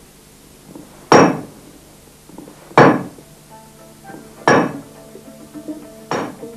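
Four loud hammer blows on metal, evenly spaced about one and a half seconds apart, each with a short metallic ring, over faint sustained music.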